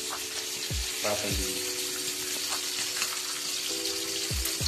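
Marinated fish frying in shallow oil on a flat tawa: a steady sizzle of hot oil.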